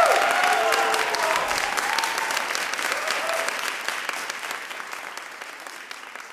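Audience applauding, with a few voices calling out in the first second or so; the clapping dies away steadily toward the end.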